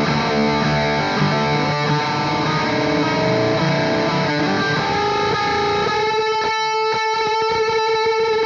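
Distorted electric guitar in drop D playing a droning lead line, with open strings ringing against fretted notes and slow bends, run through delay and modulation effects. About six seconds in, the low notes drop away and a held set of higher notes rings on.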